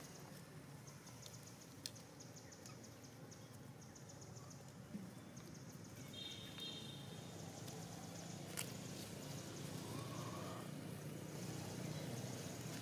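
Faint outdoor background with a quick, steady high ticking, a few light clicks, and a brief high-pitched animal call about six seconds in.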